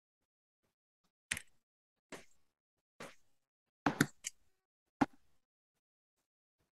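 Computer keyboard keys being typed: about seven short, sharp clicks at uneven intervals, three of them bunched together near the middle.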